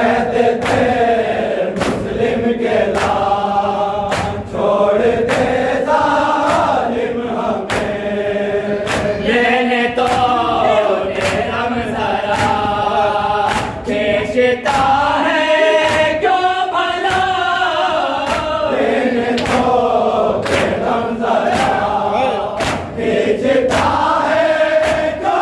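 Men chanting a noha (Shia mourning lament), a lead voice through a microphone with the group answering in chorus. Regular sharp slaps of hands striking chests (matam) keep the beat, a little more than once a second.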